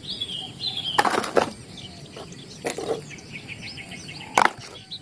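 Muddy toy vehicles knocking and clattering as they are picked up and dropped into a basket: a cluster of sharp knocks about a second in, one near three seconds and another near four and a half seconds.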